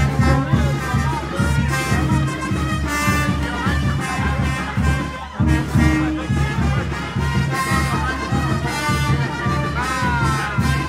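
Festive brass band music with trumpets and a steady bass beat, with a brief break about five seconds in.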